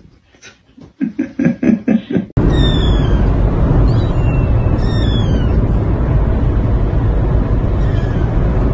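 A quick run of short pulses, then a kitten meowing a few times in short, high, falling calls over a loud, steady car-cabin rumble.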